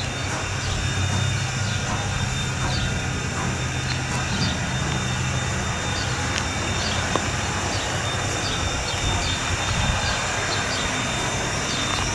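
Strasburg Rail Road No. 90, a 2-10-0 steam locomotive, drifting slowly closer: a steady low rumble that eases off about halfway through.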